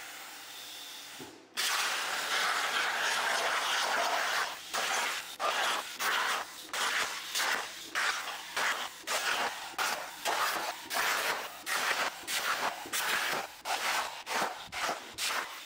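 BestArc BTC500XP plasma cutter's hand torch cutting steel plate on a CNC table: a harsh, even hiss of the arc and air jet. The hiss is quieter at first and drops out briefly about a second and a half in, then returns loud. From about four seconds in it breaks into many short bursts separated by brief gaps.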